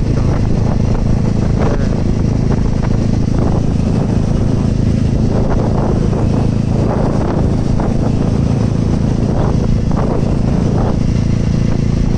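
Motorcycle engine running steadily at cruising speed, heard from on board the moving bike together with a steady rush of wind and road noise.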